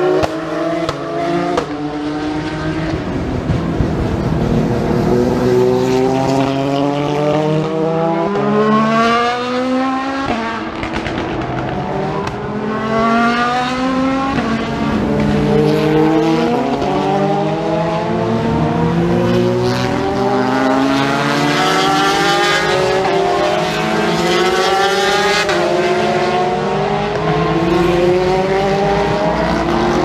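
Endurance race cars accelerating along the circuit, engines rising in pitch through gear after gear, several cars overlapping one after another.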